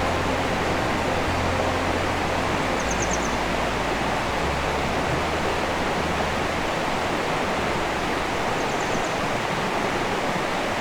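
Steady rush of flowing water, like a waterfall or fast stream. Low sustained music notes sit beneath it and stop about seven seconds in. Two brief high trills come through, one about three seconds in and one near the end.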